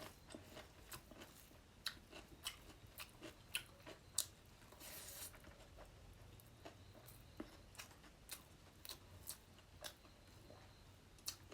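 Faint close-up mouth sounds of a person chewing and eating fish curry: irregular wet clicks and smacks, several a second, with a short soft breath-like hiss about halfway through.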